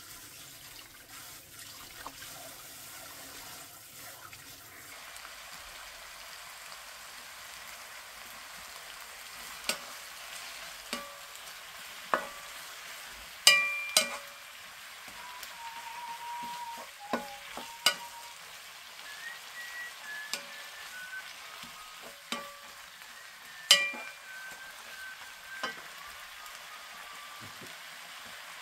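Tap water running over vegetables in a sink for the first few seconds, then thin-sliced pork belly and cabbage sizzling in a pan, with a wooden spatula knocking against the pan now and then as it is stirred. From about halfway, someone whistles a tune over the sizzling.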